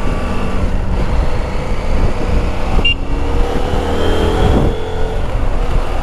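Motorcycle riding in road traffic: the engine running under a steady rush of road and wind noise, its note rising slowly a few seconds in as it speeds up.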